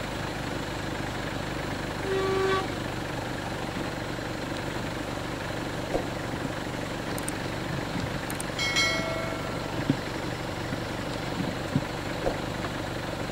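Vehicle engine idling steadily, with two short horn toots: one about two seconds in and a higher, briefer one near nine seconds.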